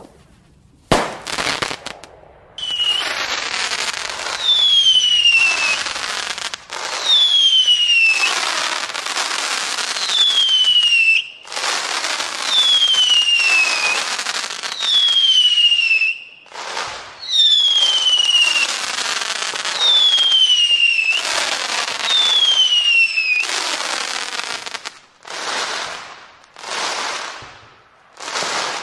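Fireworks: a single sharp bang about a second in, then a run of about nine whistling fireworks, each a hiss with a whistle falling in pitch. Near the end come a few shorter hissing bursts without the whistle.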